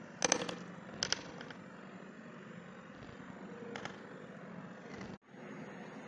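Small hard plastic parts, a bottle cap and a clear plastic piece, clicking and tapping as they are handled: two quick groups of sharp clicks in the first second or so, and two fainter ones later. Under them runs a steady low hum.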